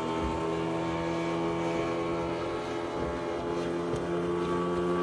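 A motorboat engine running steadily as a small boat crosses the water, a constant even drone.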